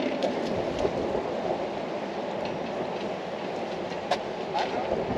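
Steady rumble of vehicle traffic on the concrete road bridge overhead, with a couple of light clicks about four seconds in.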